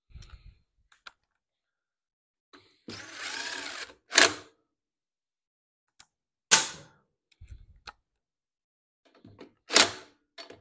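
Cordless DeWalt drill-driver run in short bursts on the bolts of a mower engine's air-filter housing: one longer run about three seconds in, then several brief, loud pulses, with light clicks of tool and metal in between.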